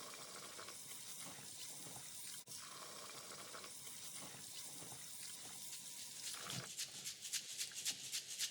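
Faint running water, like a tap trickling into a sink, with a quickening run of light clicks near the end.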